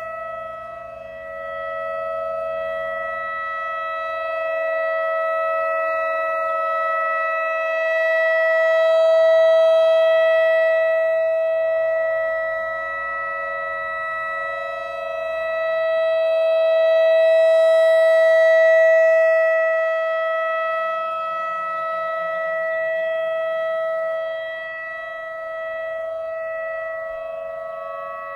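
Whelen WS-3000 electronic outdoor warning siren sounding a steady tone of unchanging pitch. The sound swells and fades as its speaker array rotates, loudest about every eight to nine seconds.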